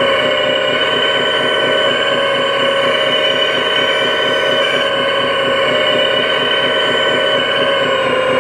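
Hydraulic pump of a scale RC hydraulic excavator whining steadily with several high tones over a fast buzzing ripple, as the machine swings and dumps its bucket of topsoil.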